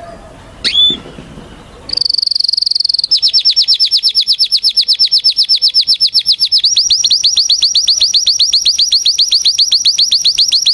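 Domestic canary singing. A short upward whistle comes first, then a fast high trill, then a long run of rapid repeated notes at about eight a second. The run shifts to a new phrase partway through and stops abruptly near the end.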